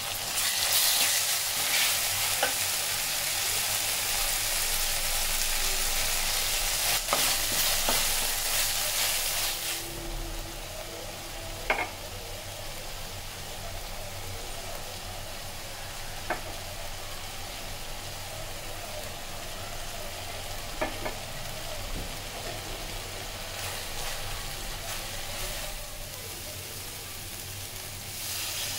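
Oil sizzling in a metal pan as spice pastes and ground spices fry and are stirred, with a few sharp knocks of the spoon against the pan. The sizzle is loudest for the first ten seconds and then settles lower, and it swells again near the end as water is poured in.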